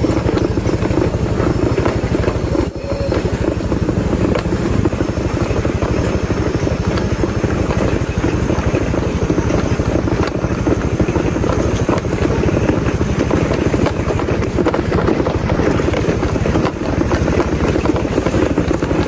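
A vehicle's engine running steadily with a dense, rapidly pulsing low rumble.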